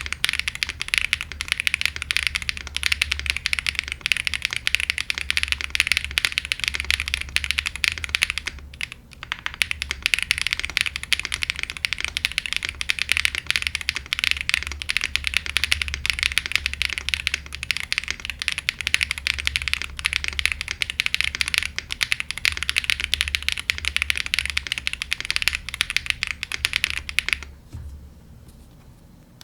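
Fast, continuous typing on an Aero75 gasket-mount mechanical keyboard with Owlab Neon linear switches on an FR4 plate and GMK keycaps. There is a short pause about a third of the way in, and the typing stops shortly before the end.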